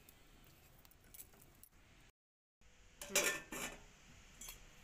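Steel cookware clinking: a stainless-steel plate set as a lid on a steel pot, a short clatter of strikes with a brief metallic ring about three seconds in. Before it, faint handling noise and a moment of dead silence.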